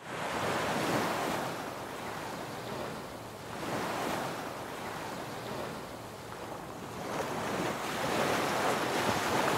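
Sea waves breaking and washing in, swelling and fading in slow surges every three to four seconds.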